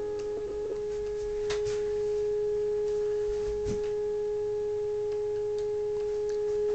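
Steady pure tone of about 430 Hz from the Uniden 2020 transceiver's receiver: the signal generator's carrier heard as a beat note while the RF preamp is peaked, now strong at 30 over 9. The tone wavers briefly at the start, then holds steady, with a few faint clicks.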